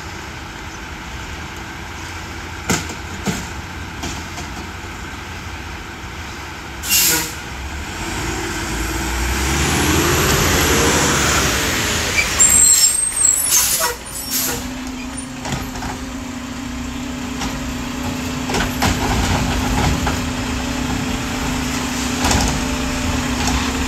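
Garbage truck with a McNeilus front-loading body and Curotto-Can arm running at the curb. The engine revs up and back down, the way a refuse truck's engine speeds up to drive the arm hydraulics. There is a sharp air hiss about seven seconds in, louder hissing and clatter around thirteen seconds, and a steady low hum from about fourteen seconds on.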